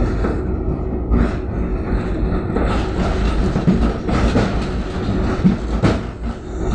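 Tram running along its route, heard from inside the car: a steady rumble of wheels on rails with a constant hum and irregular knocks, the sharpest about six seconds in.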